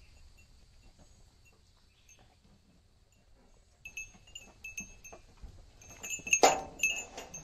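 A small bell or chime tinkling in short irregular jingles, starting about four seconds in, as the goats jostle over a slice of watermelon. A single loud sharp knock cuts through near the end.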